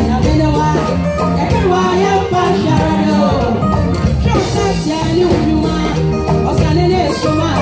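Women's gospel praise choir singing with a lead vocalist out front, over instrumental accompaniment with a steady beat.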